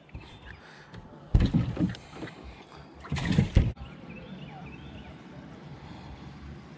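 Two loud bumps with rustling, about a second and a half and about three seconds in, then a faint steady hiss.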